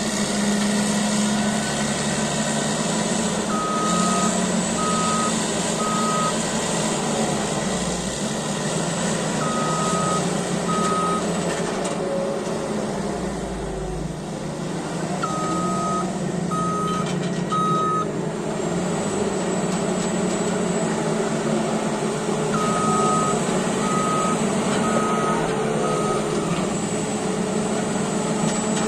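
A CAT D8T bulldozer's diesel engine running steadily while its reverse alarm beeps in four short runs of two to four beeps as the dozer backs up.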